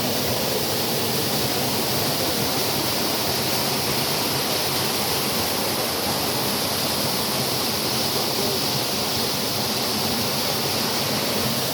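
Water rushing steadily into or out of a natural rock pool, a constant even noise with no breaks.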